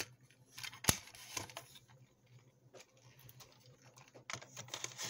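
Light clicks and taps of hands handling small objects on a tabletop during cassette repair work. One sharp click comes about a second in, then scattered faint clicks, with a few more close together near the end.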